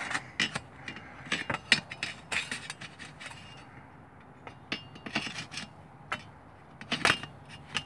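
Sheet-steel chimney stack being worked loose and lifted off the lid of a steel-bucket rocket stove: irregular metal clanks, scrapes and knocks, the loudest about a second and a half in and near the end.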